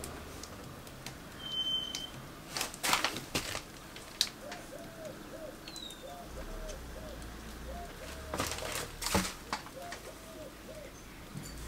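A pigeon cooing in a run of soft repeated calls through the second half, with a few short knocks and rustles from work close by, the loudest about three seconds in and again near nine seconds.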